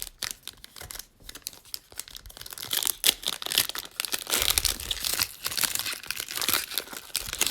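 Trading-card pack wrapper being torn open and crinkled by hand, a run of irregular crackling that is busiest in the second half.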